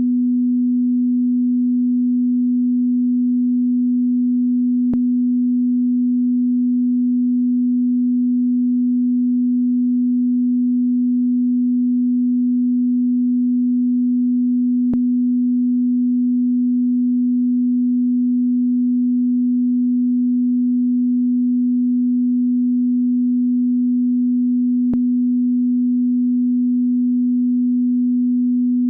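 Telephone beep sound effect: one steady, low pure tone held without a break, with three faint clicks about ten seconds apart.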